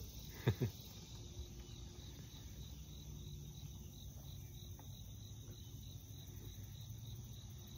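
Insects chirping steadily outdoors: a faint, high, regularly pulsing note. A brief louder noise about half a second in.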